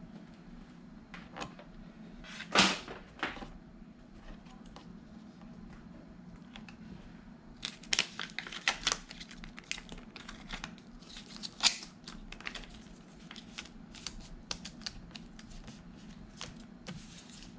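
Paper and plastic film crinkling and crackling as a hand peels and handles a sticker, with scattered clicks: one sharp crackle about two and a half seconds in and a busy run of crackles from about eight to twelve seconds. A faint steady hum underlies it.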